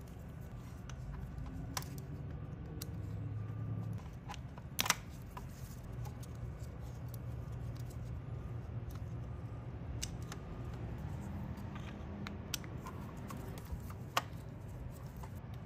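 Scattered light clicks and taps of a 4 mm hex wrench working the bolts of a chainsaw's air intake carburetor mount, the loudest about five seconds in, over a low steady hum.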